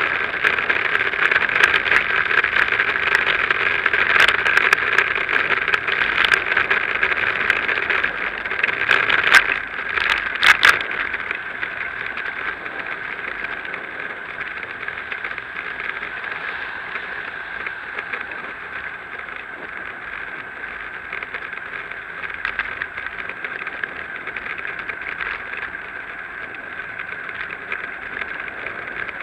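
Riding noise from a moving bicycle picked up by a bike-mounted action camera: a steady rushing hiss with a few sharp clicks and knocks about nine to eleven seconds in. The hiss then settles quieter for the rest of the ride.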